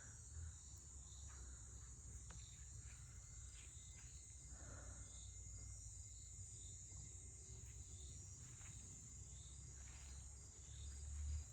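Faint insect chorus of crickets: a steady high-pitched buzz with a softer chirp repeating at a regular pace, over a low rumble that swells briefly near the end.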